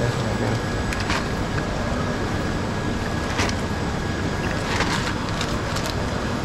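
Steady background din of a busy seafood market stall, with a few short sharp knocks or splashes: one about a second in and several between about three and a half and six seconds in.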